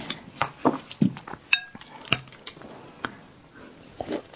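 Chopsticks clicking and tapping against a porcelain bowl while picking through saucy braised meat, with one ringing clink about a second and a half in. Near the end comes a softer, wet bite as a piece is taken into the mouth.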